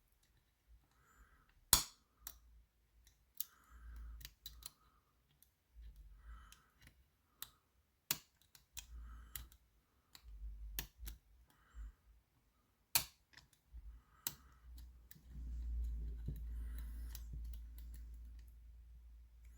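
Lever safe lock being picked: a metal pick and tensioner scrape and tap against the levers, with scattered sharp clicks, three of them louder than the rest. A low dull rumble of handling noise runs for a few seconds near the end.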